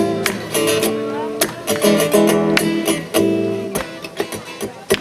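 Acoustic guitar strumming chords in an instrumental passage of a live song, each chord struck sharply and left to ring.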